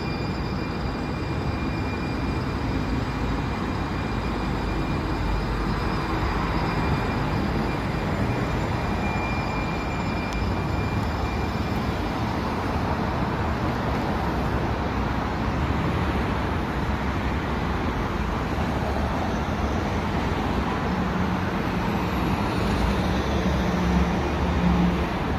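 Muni Siemens S200 light-rail train pulling away from the platform, a steady high whine fading out about halfway as it recedes, over a steady hiss of street traffic.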